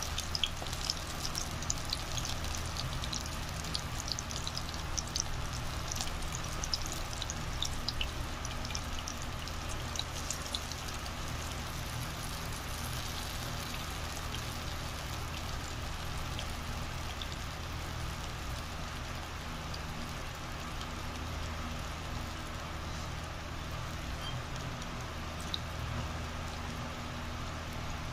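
Floured chicken fingers frying in hot oil in a small electric cooker pot: a dense crackle and spatter of popping oil that thins out after about ten seconds, over a steady low hum.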